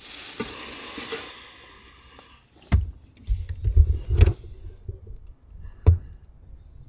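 A crinkling rustle for about two seconds, then a run of knocks and bumps with a few sharp clicks as the camera is handled and moved around inside a car.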